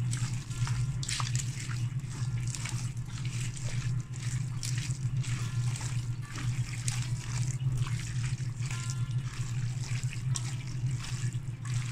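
Hands kneading raw beef with chopped onion, spice pastes and mustard oil in a bowl: a continuous run of wet squelching and squishing, with a steady low hum underneath.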